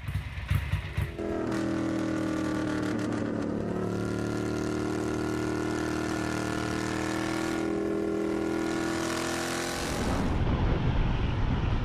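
Ducati bevel-drive V-twin motorcycle running at steady revs under way, heard from the rider's seat, its note holding nearly one pitch for about eight seconds. Near the end it gives way to a rougher, noisier engine-and-wind sound.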